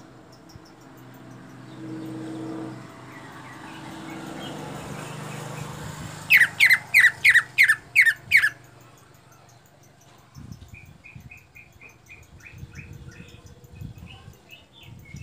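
Green leafbird (cucak ijo) calling: a burst of about seven loud, sharp notes in quick succession about six seconds in, then a softer run of short rapid notes. A low steady hum sits under the first part, with faint insect chirping in the background.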